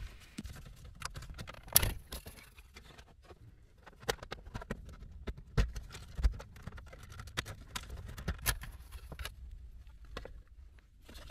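Plastic dashboard side trim panel of a Toyota RAV4 being pried off with a plastic trim tool: many small clicks and plastic rattles, with a few louder snaps as the retaining clips let go, about two seconds in and again later.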